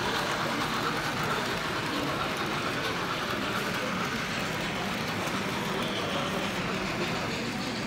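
Model railway train, a steam locomotive model hauling passenger coaches, running along the track with a steady whir and rolling rumble.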